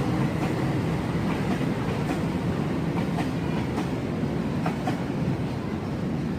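Freight train wagons rolling past with a steady rumble, and a few clacks of wheels over rail joints.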